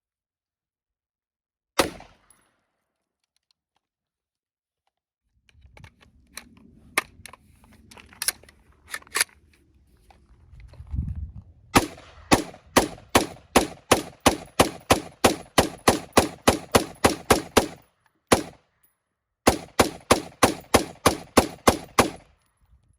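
Gunshots from a semi-automatic firearm. A single shot is followed by several fainter ones, then two long strings of rapid fire at about three shots a second, with a short pause between them.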